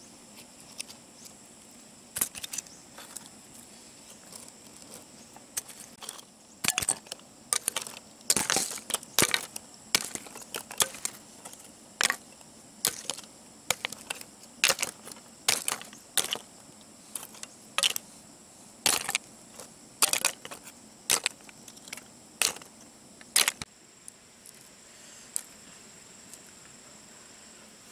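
Charred mussel shells clicking and cracking as they are handled and broken open by hand, in irregular sharp clicks that come thick and fast and stop a few seconds before the end.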